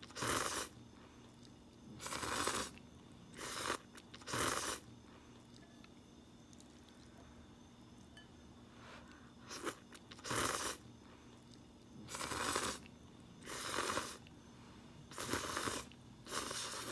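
A person slurping instant ramen noodles in about ten short, loud slurps, with a quiet pause of about four seconds in the middle.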